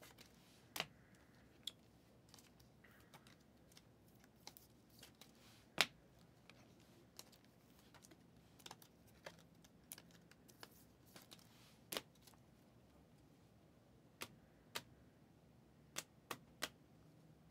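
Scattered light clicks and taps from trading cards and their plastic sleeves being handled and set down, with two louder ones about six and twelve seconds in and a quick run of them near the end.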